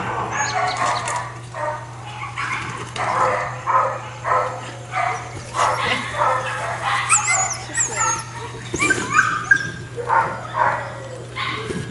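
Dog barking repeatedly in short, irregular runs of barks.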